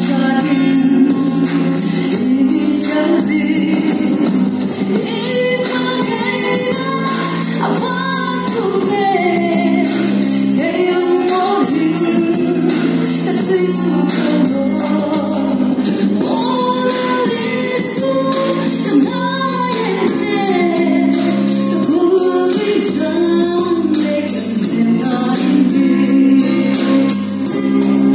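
A woman sings a gospel song through a microphone and PA, over musical accompaniment with a steady beat. Her voice holds and glides between long notes.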